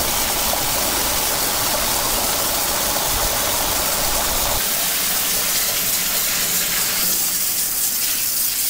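Water from a garden hose gushing steadily into a boat's engine-room bilge, filling it to trigger the automatic bilge pump. The low part of the rush drops away about halfway through.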